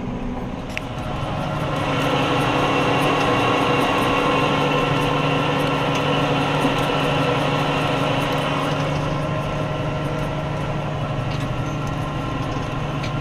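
New Holland T7 tractor's diesel engine running steadily under load, heard from inside the cab, as it pulls a three-point tile plow through the soil. It grows louder about two seconds in, then holds steady.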